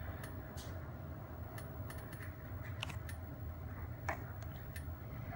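Irregular light clicks of fingertip taps on an iPhone 5c's glass touchscreen, over a steady low hum.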